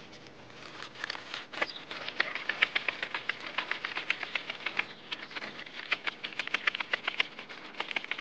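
Paper banknotes being counted out by hand, a rapid run of crisp flicks, several a second, starting about a second in.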